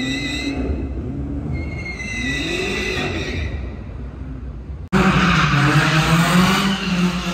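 A car engine revving up and down with tyres squealing in two spells, as in a drift. About five seconds in the sound cuts sharply to a louder engine holding a steady drone, with tyre noise over it.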